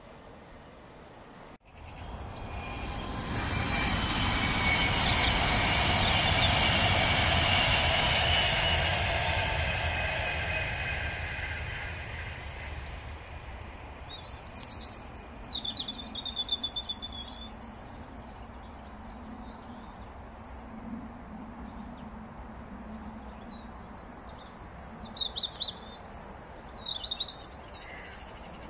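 A train passes, swelling to its loudest about six seconds in with a steady whine over its running noise, then fading away. Once it has gone, birds chirp and twitter in short bursts.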